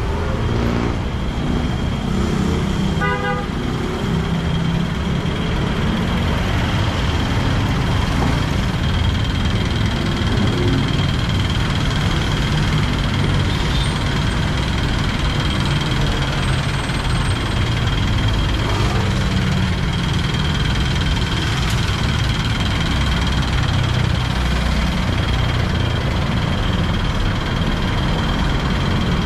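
Busy road traffic: a steady rumble of car and motorcycle engines passing, with a short horn toot about three seconds in.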